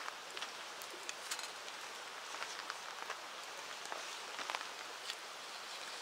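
River water flowing with a steady, even rush, with a few scattered light clicks on top.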